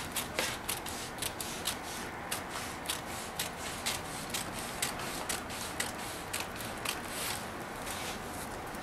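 Scissors snipping through a paper sewing pattern, a steady run of short cuts about three a second that stops near the end.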